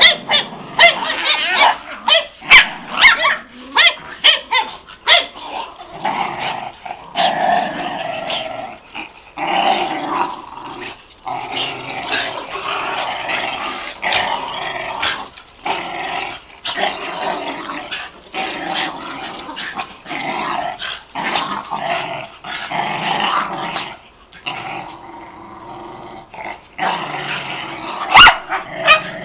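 Dogs play-fighting, growling almost without pause, with a flurry of sharp barks and yips in the first few seconds and again near the end.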